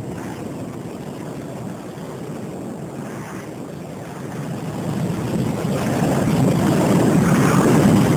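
Film sound effects of an asteroid impact and a giant tsunami wave: a rushing, rumbling roar that swells through the second half and peaks near the end.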